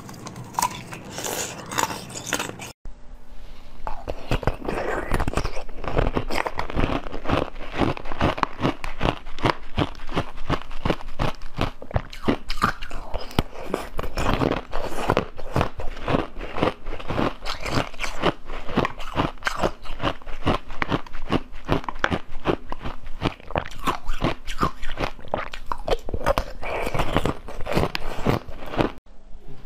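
Close-miked crunching and chewing, dense crackly bites and wet mouth sounds, as purple ball-shaped ice pops are bitten and eaten. A brief break about three seconds in, where a different eating clip cuts in.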